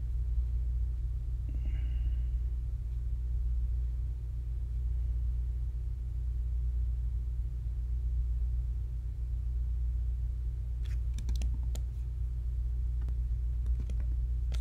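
Steady low hum of background room or microphone noise, with a cluster of quick sharp clicks from the computer's mouse and keys near the end.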